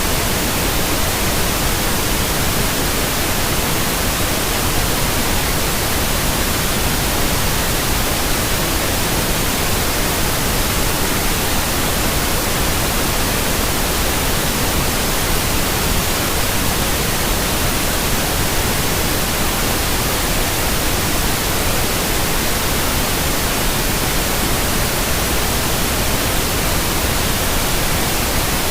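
Steady, unchanging white noise: an even hiss spread across all frequencies, with no breaks or other sounds.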